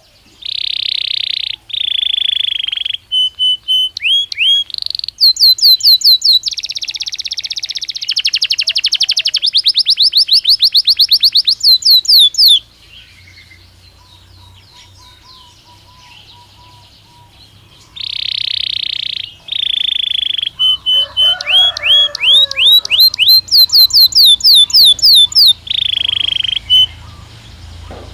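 Belgian canary singing two long song phrases with a pause of about five seconds between them. Each phrase opens with held notes and moves into fast runs of rising chirps that repeat many times a second.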